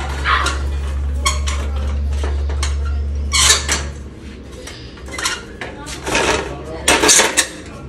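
Metal step ladder clanking and knocking as a man climbs onto it and grips its handrails, a string of sharp metallic knocks with the loudest about three and a half and seven seconds in. A steady low hum runs beneath and stops about four seconds in.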